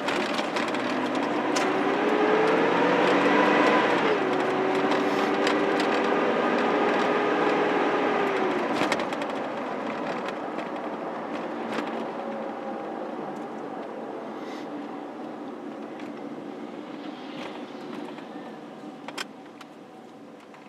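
Car driving heard from inside the cabin: the engine note rises as it accelerates, drops abruptly at a gear change about four seconds in, then holds steady over road noise. Around nine seconds in it eases off, and the road noise gradually fades as the car slows.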